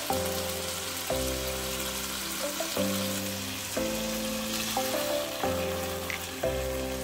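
Food frying in hot oil in a pan: a steady, dense sizzle, with background music playing along.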